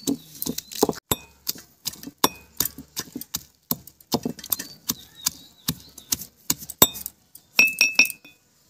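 A pestle pounding whole Indian jujubes (kul) in a stone mortar: quick repeated knocks and crunches as the fruit is crushed, about three or four strokes a second. A short ringing clink comes near the end.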